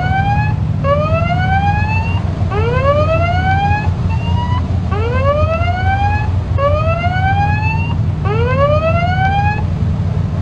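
Ship's electronic siren wailing in repeated rising sweeps. Each sweep climbs for over a second, breaks off and starts again about every second and a half, over a steady low rumble of engines and wind.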